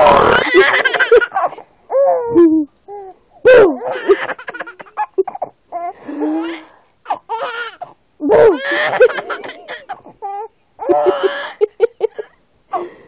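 A seven-month-old baby laughing with his fingers in his mouth, in about six giggly fits of a second or two each, with short pauses between.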